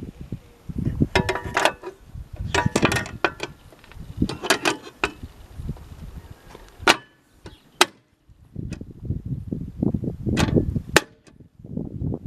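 1963 Royal Empress manual typewriter being typed on: typebars clacking against the platen in quick bursts with short pauses, then a few single sharp strikes. A low rumbling noise comes and goes beneath the keystrokes.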